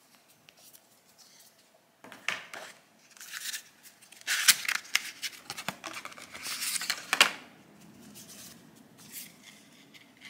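Phone-box packaging being handled: bursts of rustling and crinkling with small sharp clicks, loudest from about two to seven seconds in.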